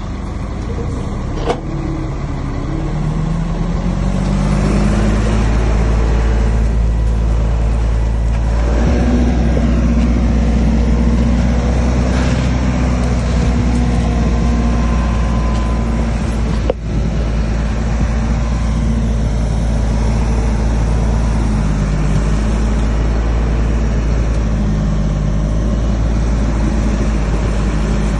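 A heavy diesel engine of construction machinery running under load. Its pitch climbs a few seconds in, dips briefly, then holds high. Two sharp knocks cut through it, one early and one about two-thirds of the way in.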